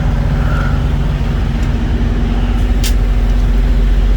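A truck's diesel engine idling steadily, with a light click near the end.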